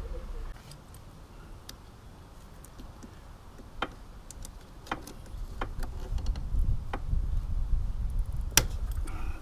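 Hand tools on metal rack hardware as a bolt is tightened with a wrench and pliers: scattered sharp metallic ticks about a second apart, the loudest near the end. A low rumble builds from about halfway.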